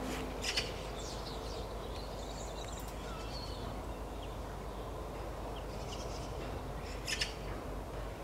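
Faint outdoor background with birds calling: small chirps here and there, and two short, harsh calls, one about half a second in and one near the end.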